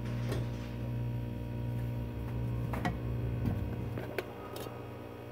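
Coconut oil and latik crackling in a wok, with a few scattered sharp pops and clicks over a steady low hum.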